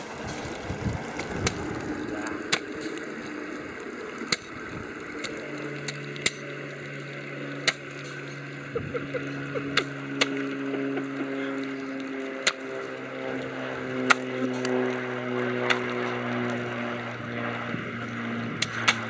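Sharp, irregular cracks of radio-controlled model warships' CO2 cannons firing ball bearings at close range, about a dozen shots, over water and wind noise. From about five seconds in, a steady electric motor or pump hum runs underneath.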